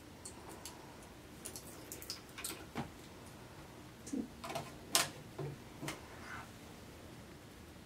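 Light clicks and taps of a small vanilla bottle and measuring spoon being handled on a kitchen counter, scattered and irregular, the sharpest click about five seconds in.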